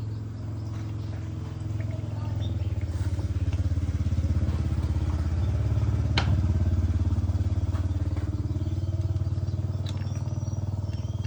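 Pickup truck engine running steadily after repair. It grows louder about two seconds in and eases back a little later on, with a single sharp click about six seconds in.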